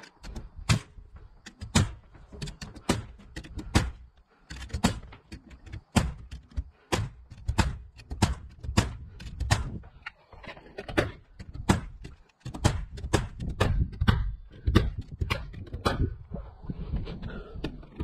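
Ridgid pneumatic framing nailer firing nails through OSB roof sheathing into the trusses, one sharp shot after another, about two a second.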